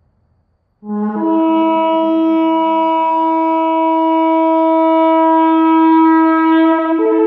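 Shofar sounding one long, loud blast that starts about a second in: a brief low note jumps up to a steady held tone, which steps up in pitch again near the end.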